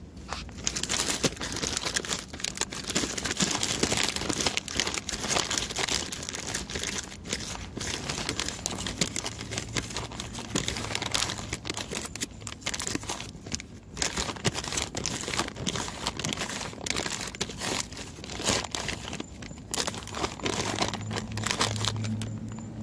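Plastic salad-kit bag crinkling and crackling as the salad inside is stirred with a fork, with many sharp crackles and brief pauses.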